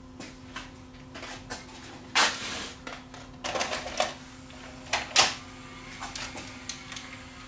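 A Panasonic PV4250 VHS deck's loading mechanism clicking and clattering as a cassette is pushed in and taken up by the machine. There are a few sharp clacks, the loudest about two seconds in and about five seconds in, with lighter mechanical ticks between.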